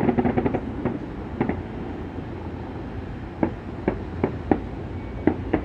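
Distant fireworks going off over a steady low rumble. A quick run of crackles comes at the start, then a few more scattered bangs, some in pairs, from about three and a half seconds on.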